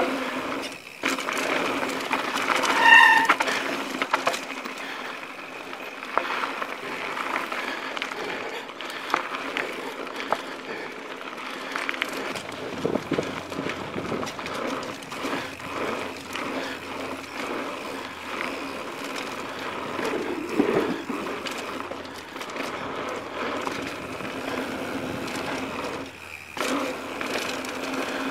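Mountain bike riding fast over a dirt singletrack trail: a steady rush of tyre and riding noise, with many small clicks and rattles from the bike over bumps. A brief pulsing high-pitched squeak sounds about three seconds in.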